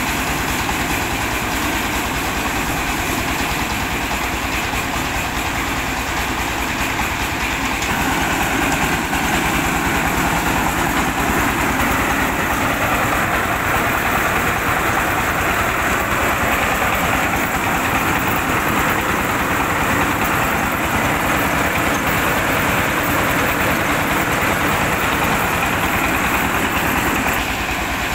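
Diesel engine running steadily, driving a rice milling machine with the rattle and hiss of grain going through it. The noise grows louder and harsher about eight seconds in and eases back near the end.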